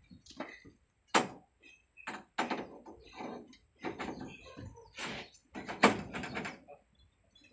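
Fabricated steel truss knocking and scraping against the truck's steel rack as it is shifted by hand, with a sharp metal knock about a second in and another near six seconds in, and lighter knocks between.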